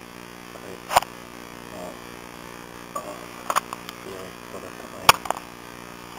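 Steady electrical mains hum, broken by three sharp clicks about a second, three and a half seconds and five seconds in, the last the loudest.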